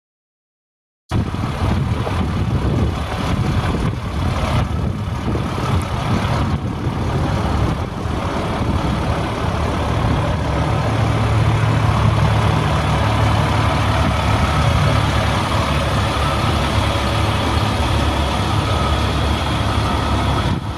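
The International DT530E inline-six diesel engine of a 1999 International 4900 dump truck idling steadily, starting about a second in.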